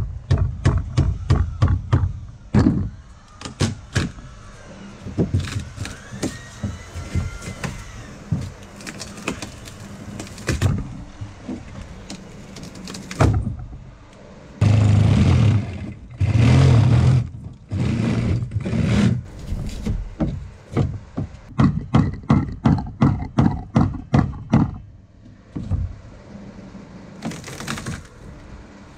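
Hammer driving a chisel into the rotten plywood core of a fibreglass boat transom: quick runs of sharp blows at about four to five a second, with scattered single knocks between. Around halfway come a few louder, steadier bursts about a second long each.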